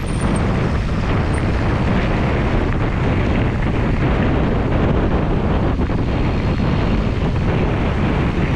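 Wind buffeting the microphone of a camera on a mountain bike moving at speed: a loud, steady rush with a deep rumble, over faint trail and tyre noise.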